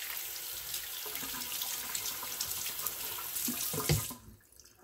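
Water running from a sink faucet and splashing over soapy hands as they are rinsed, then the tap is shut off about four seconds in.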